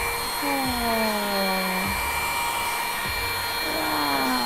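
Small cordless handheld vacuum cleaner, USB-rechargeable, running steadily with a thin high whine as its narrow nozzle is worked over a laptop's keyboard and screen. A lower tone slides down in pitch about half a second in and again near the end.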